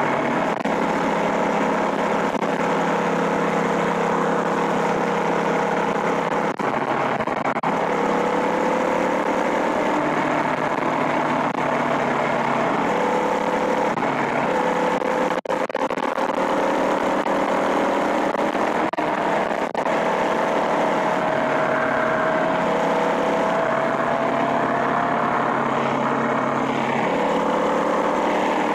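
Small motorized-bicycle engine running while riding, its pitch drifting slowly up and down with the throttle, over a steady rush of noise.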